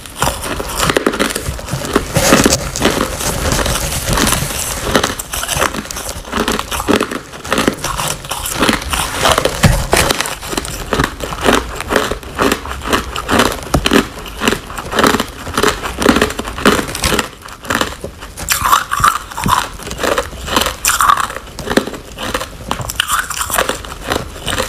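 Hard clear ice being bitten and chewed close to the mouth: a dense run of sharp cracks and crunches, settling in the second half into steadier crunching bites about two to three a second.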